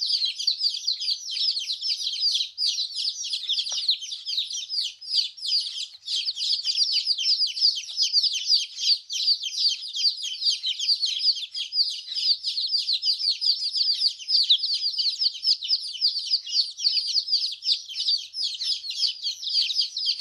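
Baby chicks chirping: a dense, continuous run of short, high, downward-sliding peeps, several a second from more than one chick, overlapping.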